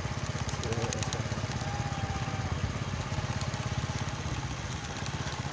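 Small engine running steadily on a moving vehicle, a fast, even chugging of firing strokes with no change in speed.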